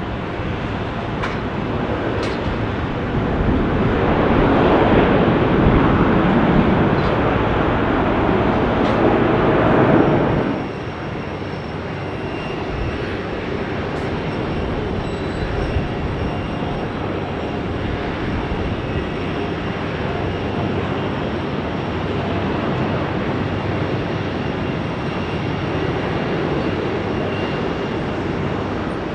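Jet airliner noise swelling into a loud rumble, then cut off abruptly about ten seconds in, followed by a steadier, quieter jet rumble from another arriving airliner.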